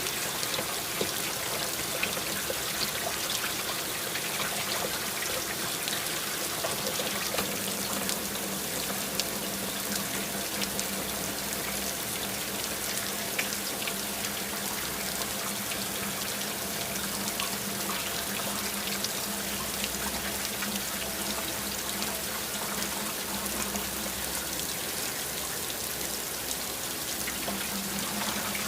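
Water running and trickling steadily, with a faint low hum underneath through much of it.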